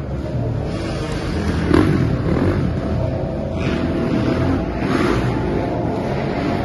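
Motocross dirt bike engine running on the track, the throttle opening and closing so the engine note rises and falls several times.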